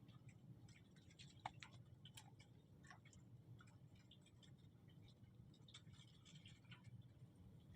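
Near silence, with faint irregular ticking and clicking, one click slightly louder about a second and a half in.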